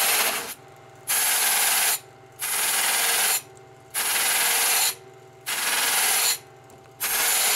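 Metal rake pressed against a stitched cotton buffing wheel spinning on a bench buffer, in six strokes of about a second each, a harsh scraping hiss each time over the buffer motor's steady hum. The rake is loosening glazed, compound-clogged buffing so the wheel cuts again.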